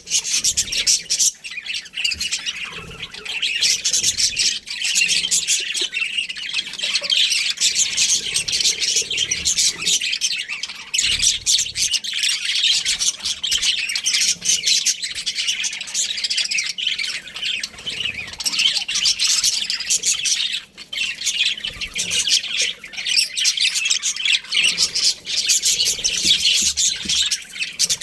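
A pair of budgerigars chirping and chattering without pause, many quick high calls running into one another, with one short lull about three-quarters of the way through.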